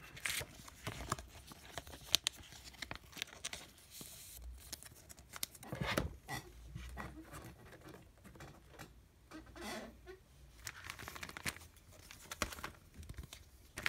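Plastic card sleeves and Pokémon trading cards being handled: irregular rustling and crinkling with light clicks and taps as a card is sleeved and set down among others.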